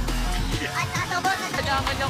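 Music with a deep bass that drops away about half a second in.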